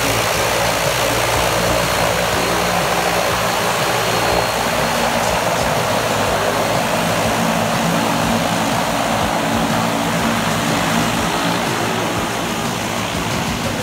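Twin Pratt & Whitney PT6A turboprop engines of a de Havilland Canada DHC-6 Twin Otter floatplane running with propellers turning as it taxis on the water. The noise is loud and steady throughout.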